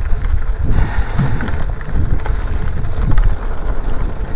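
Wind rumbling on the microphone of a moving bicycle, with tyres crunching and the bike rattling over fresh loose gravel.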